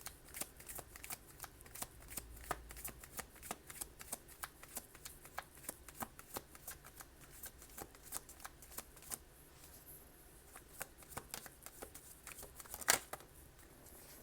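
A tarot deck being shuffled by hand: a quick run of card flicks and slaps that thins out about nine seconds in, with one sharper, louder card snap near the end.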